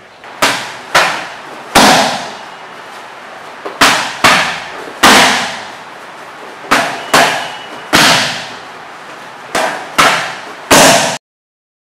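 Gloved punches and a shin kick smacking Thai pads in four sets of three: a jab, a left hook, then a right roundhouse kick, the kick usually the loudest smack. Each hit has a short ring of room echo. The sound cuts off abruptly near the end.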